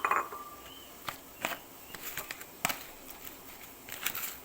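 Kitchen handling sounds: a sharp clink with a brief ring right at the start, then scattered light taps and rustles as ingredients are handled in a dish.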